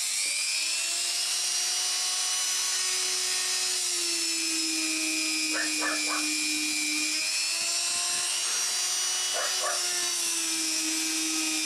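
Small handheld electric engraver running with a steady high whine as its bit grinds small pits into the plastic body of a power triac. The pitch sags a few times as the bit bites in, with a few brief squeaks around the middle.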